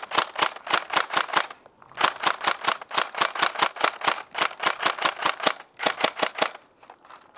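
Tokyo Marui Next Gen G36K electric airsoft rifle firing rapid strings of shots, about six or seven a second, with two short breaks in the firing.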